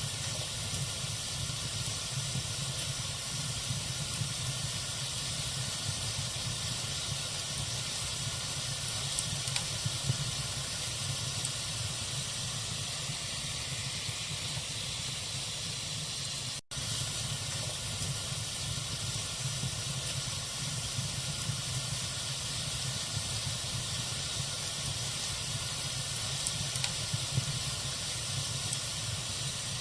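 Log fire burning in a fireplace: a steady hiss with a few small crackles and pops, and a split-second gap in the sound just past halfway.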